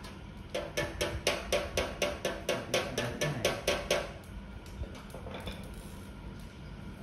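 A rapid, even run of metallic knocks, about four a second with a short ringing after each, starting about half a second in and stopping about four seconds in.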